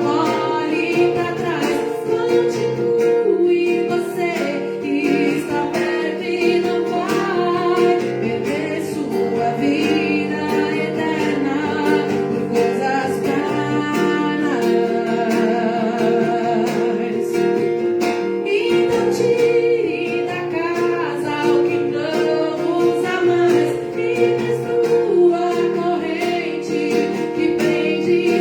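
Live music: a song sung with guitar accompaniment.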